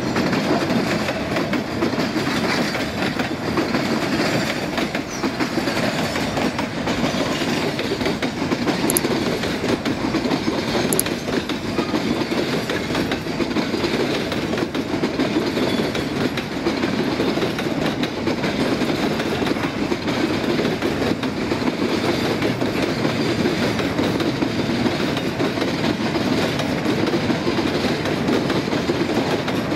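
Empty freight wagons of a long train rolling past at speed. A steady rumble of steel wheels on rail, with many small clicks throughout.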